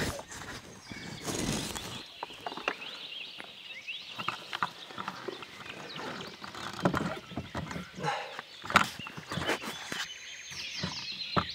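Rustling and rubbing against the camera, then scattered knocks and clicks over a background of birdsong, short chirps and whistles.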